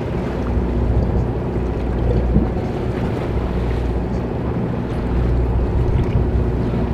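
Boat engine running steadily at low revs, a constant low hum, with wind buffeting the microphone and the sea washing around the hull.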